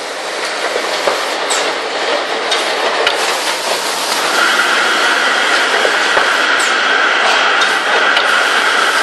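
Two-piece folder gluer machine running: a steady mechanical clatter with scattered clicks, joined about four seconds in by a steady high whine.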